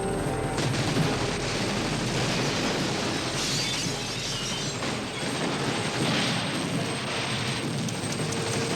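Dense action-film sound of a helicopter running, mixed with booming blasts.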